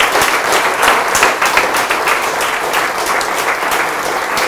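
Audience applauding: many hands clapping at once, a dense steady patter.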